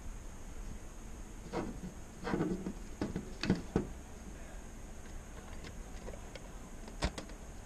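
A few short knocks and clicks of cable connectors and a small box being handled at the back of a lighting console. Several come between about one and a half and four seconds in, and one sharp click comes near the end, over a steady hum with a faint high whine.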